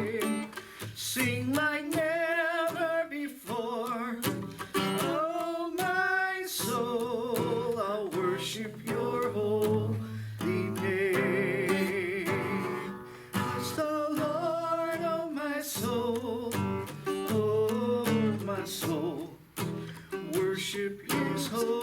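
Worship song playing: a singing voice with vibrato over strummed and plucked guitar.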